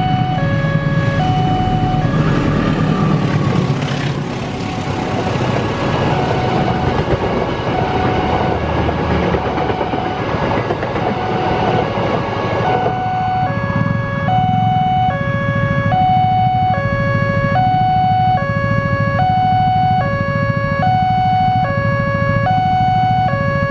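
Level-crossing warning siren, a newly installed unit, sounding a steady two-tone alternation that switches pitch about every 0.8 seconds. From about a second and a half in until about thirteen seconds, the rumble and rushing of a passing train largely covers it; then the siren carries on alone.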